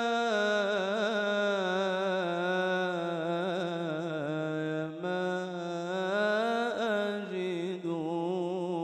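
A male mubtahil's voice singing an Islamic devotional ibtihal, drawing out one long melismatic phrase on a held vowel with quick wavering ornaments and slides in pitch, fading away at the very end.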